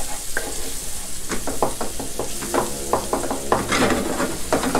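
Duck eggs, shrimp and shiitake mushrooms sizzling in a hot stone-coated wok while a wooden spatula stirs and scrapes them: a steady frying hiss under repeated short scraping strokes, busiest near the end.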